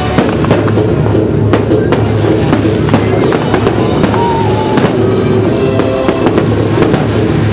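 Fireworks going off in quick succession, many sharp bangs and crackles a second or so apart, over loud music.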